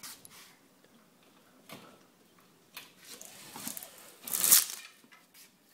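Quiet scraping and clicking from a screwdriver and screw being worked by hand, with a short, louder scrape about four and a half seconds in.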